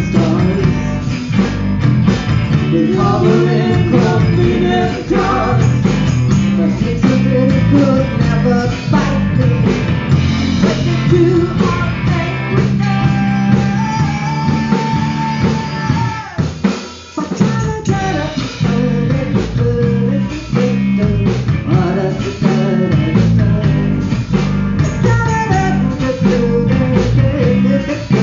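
Live rock band playing: electric guitar, bass guitar and drum kit under sung vocals. A long held sung note ends about sixteen seconds in, the band drops out for a moment, then kicks back in.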